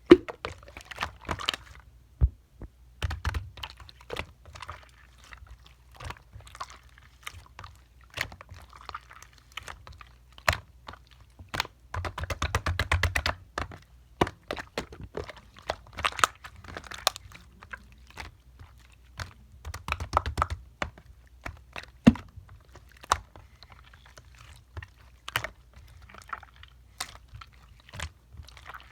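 Clear, colourless slime being squeezed, stretched and poked by hand, giving irregular sticky clicks and small pops.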